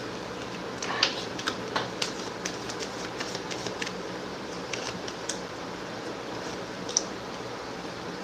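Tarot cards being handled and laid out: a run of light, quick clicks and taps, thickest in the first half with a few more later, over a steady background hum.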